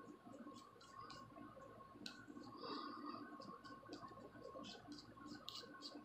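Faint, scattered scratching and clicking of a plastic comb dragged through hair and across the scalp, lifting dandruff flakes, over a faint steady hum.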